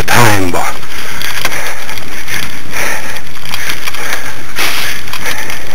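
Loud, continuous rattling and crackling from the dog-drawn rig and camera mount bumping over rough grass behind two pulling sled dogs, with irregular surges. A brief voice sounds at the very start.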